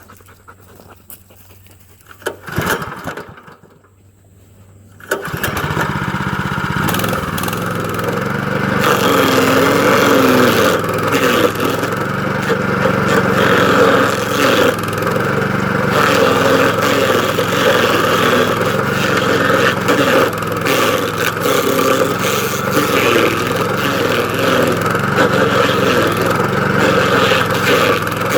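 DR stump grinder's petrol engine starting: a short burst of noise about two and a half seconds in, then the engine catches about five seconds in and runs loud and steady, with rough grinding noise over it as the cutter wheel works.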